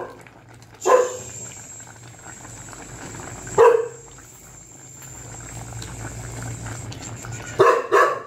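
A dog barking three times, each bark short and a few seconds apart, over a low steady hum.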